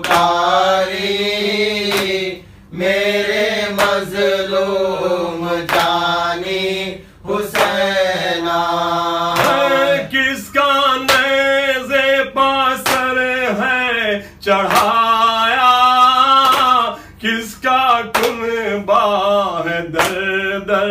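Male voice singing an Urdu noha, a mourning lament for Imam Hussain, in long drawn-out phrases broken by short breaths.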